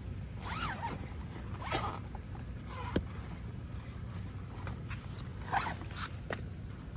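Zipper on a black fabric carp sling being pulled open in several short rasping strokes, with a sharp click about three seconds in.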